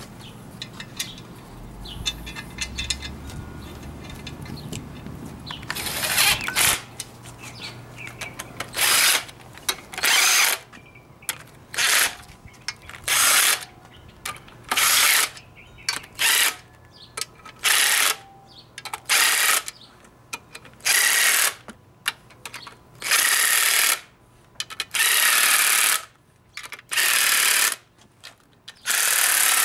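Tool running down the clutch pressure-plate bolts onto the flywheel in a series of short, loud mechanical bursts, roughly one every one and a half to two seconds, starting about six seconds in after quieter handling noises.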